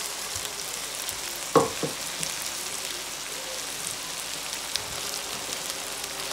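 Eggplant strips, just added to meat and vegetables, sizzling in hot oil in a kazan with a steady hiss. There is one sharp knock about a second and a half in, and a smaller one just after.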